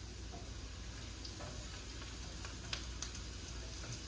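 Onions and spices gently sizzling in melted butter in a skillet over low heat, while a silicone whisk stirs them, with a few light clicks against the pan.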